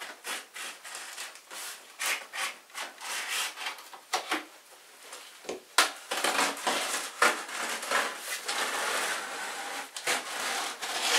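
X-Acto knife slicing through the cardboard and packing tape of a large shipping box, in irregular scratchy strokes, with rubbing and handling of the cardboard and a few sharp clicks.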